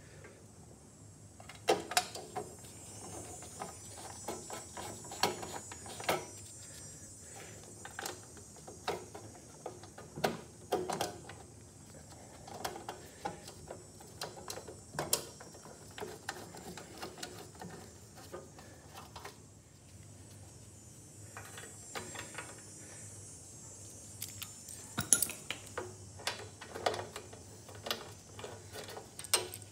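Hand tools and a plastic engine shroud being handled while its bolts are started and tightened with a socket wrench: scattered metallic clicks, knocks and clatter, with runs of quick ticks.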